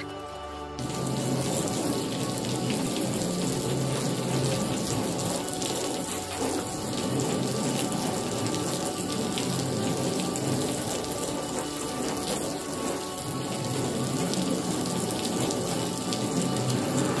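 A stream of water running steadily onto a waxed car body panel and sheeting off it, as in a water-sheeting test of the wax coating. It starts about a second in.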